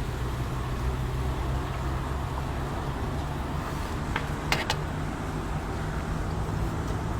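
Steady low rumble, with a few small sharp clicks about four to four and a half seconds in.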